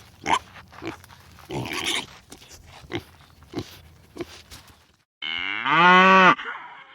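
An animal grunting several times in short bursts, then one loud drawn-out call that rises and falls in pitch, about five seconds in.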